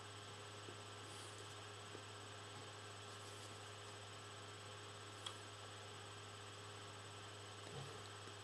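Quiet room tone: a steady low electrical hum with faint hiss and a few thin steady tones, broken by a few faint clicks, one sharper about five seconds in, and a soft low bump near the end.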